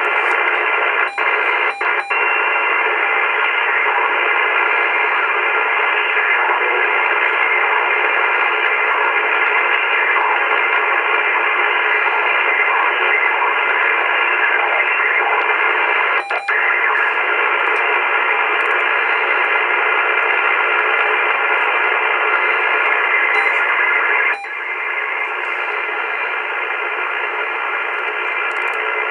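AOR AR8600 communications receiver hissing with shortwave band noise in upper-sideband mode while it is tuned slowly up around 3.1 MHz. The hiss is held to a narrow voice-width band, cuts out briefly three times, and drops a notch about 24 seconds in as the receiver's attenuator is switched on.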